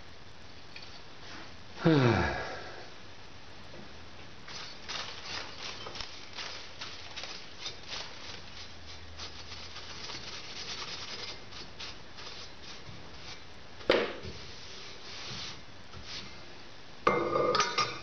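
Paintbrush sweeping loose steel chips off a cast-iron drill press table, a long run of light, irregular scratchy ticks. A brief loud sound falling steeply in pitch comes about two seconds in, a single sharp metal knock comes near the end, and the vise clatters as it is set down on the table at the very end.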